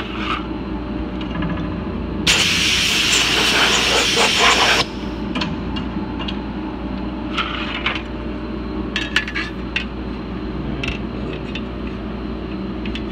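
A blast of air hissing for about two and a half seconds, blowing metal chips off a milling machine's fixture plate, over a steady shop hum. Later come a few light metal clicks and knocks as a sheet-metal part is handled onto the fixture.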